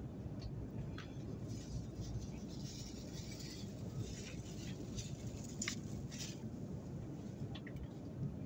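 Steady low drone of an airliner cabin in flight, with a few light clicks and scrapes of a metal spoon and fork against a foil meal tray.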